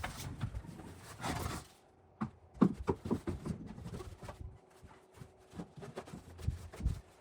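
Irregular knocks, clicks and scraping from handling ABS drain pipe and fittings during a bathroom rough-in.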